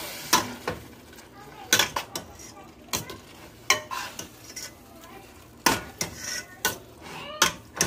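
Metal slotted spoon scraping and clinking against a steel pot as marinated chicken is stirred into fried onions, in irregular strokes over a faint sizzle.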